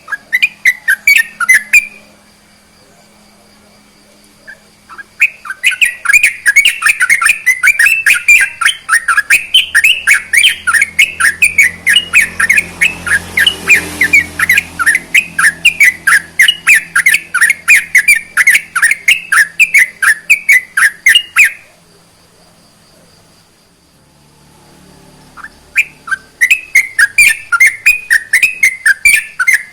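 Yellow-vented bulbul (trucukan) singing its fast chattering song: rapid, even strings of short notes, about four a second, in three long bouts with pauses of a few seconds between them.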